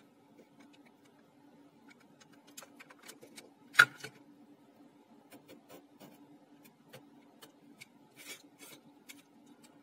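Small clicks, scrapes and rubbing as hands handle a portable CD player's metal chassis and a small screwdriver. One sharp knock about four seconds in, as the chassis is set down on the wooden table.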